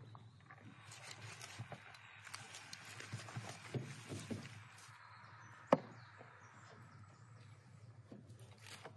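Large kitchen knife cutting through a whole roasted lamb stuffed with rice, with soft scattered knife taps and one sharp knock of the blade a little before six seconds in.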